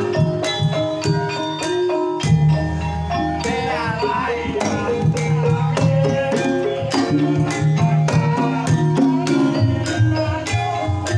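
Javanese Banyumasan gamelan playing a tayub piece: struck metal and wooden keyed instruments ring in a steady rhythm over a hand-played kendang drum, with a sinden's female voice singing over the ensemble.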